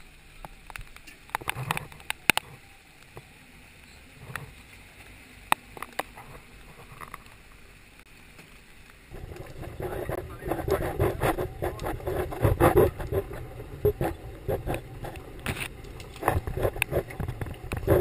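Old Jeep going down a rough, overgrown trail. At first there is a faint low drone with scattered sharp clicks and knocks of brush against the hood-mounted camera. About nine seconds in, the sound jumps to a loud rumble and clatter as the Jeep jolts over the track, with brush scraping along its side.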